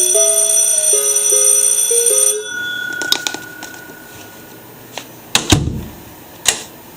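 Melody horn playing a note-by-note tune over the steady ringing of an electric alarm bell, both loud, cutting off abruptly about two and a half seconds in. A steady beep follows, then scattered clicks and a heavy thump.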